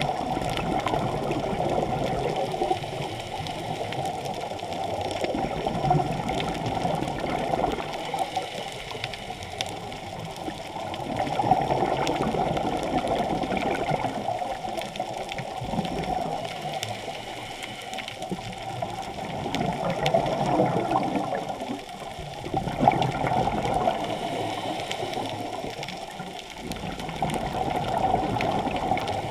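Scuba diver's exhaled bubbles from the regulator, heard underwater: a muffled bubbling rush that swells and fades every five seconds or so with each breath.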